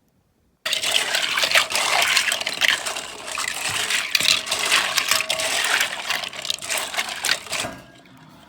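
Loose plastic IBM Model M keycaps clattering together in water: a dense rattle of many small clicks with a rushing, splashing sound. It starts suddenly about half a second in and dies down to a few faint clicks near the end.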